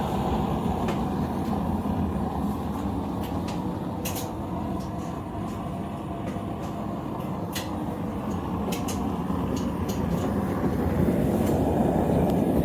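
Blacksmith's forge running with a steady low rushing noise, with a few small sharp clicks scattered through it. The noise grows a little louder near the end.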